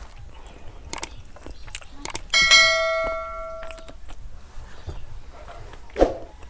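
A single bright bell ding that starts sharply and rings out for about a second and a half: the notification-bell sound of a YouTube subscribe-button animation. A short knock follows near the end.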